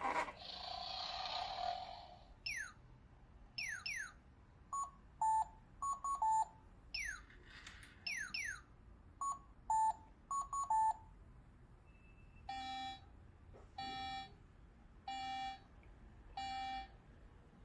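Electronic sound effects from a capsule-toy (gashapon) sound-effect gadget. A hiss at the start, then quick falling whistle-like zaps and short clusters of beeps, and near the end four buzzing tones of about a second each, roughly a second and a half apart.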